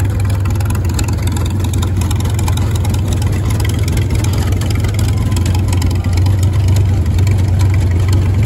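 Tractor engine running steadily with a low hum, a little louder from about six seconds in.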